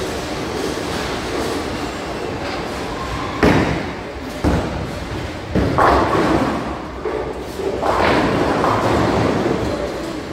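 Bowling balls thudding onto the lanes and rolling, and pins being knocked down, with several loud knocks over a steady rolling rumble. The sharpest knock comes about three and a half seconds in, with more near four and a half, six and eight seconds in.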